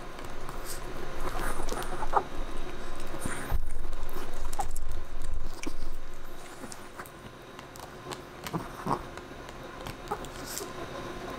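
Chihuahua gnawing on a calf neck bone, with scattered crunching and clicking chews. A low rumble runs for a couple of seconds about a third of the way in.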